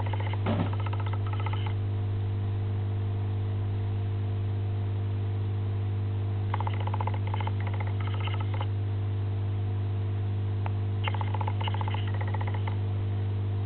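A loud, steady low electrical hum with a few fainter steady tones above it. Every few seconds a short burst of rapid, high clicking or chattering comes in, each lasting about a second or two.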